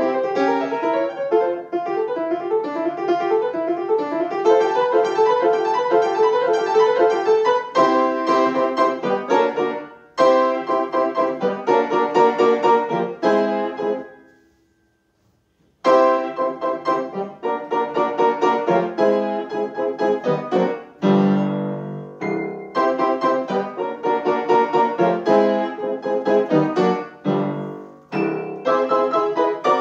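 An acoustic grand piano played solo, a quick run of notes and chords. About fourteen seconds in the playing stops and the sound dies away to silence for about a second and a half, then starts again.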